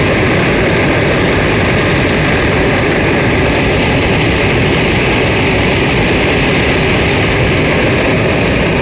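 Hot air balloon's propane burner firing in one long, loud, steady blast that cuts off near the end.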